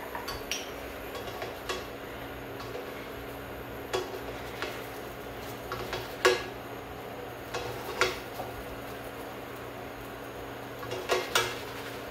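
Kitchen utensils clinking and knocking against a pan and dishes in scattered single strikes, the loudest about six seconds in and two close together near the end, over a steady low hum.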